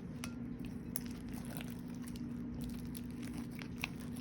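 Homemade clear slime being kneaded and mixed by hand, giving irregular small sticky crackles and clicks, over a steady low hum.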